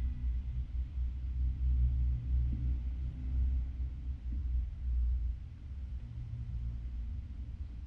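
Low, fluctuating rumble, louder for about the first five seconds and then easing off.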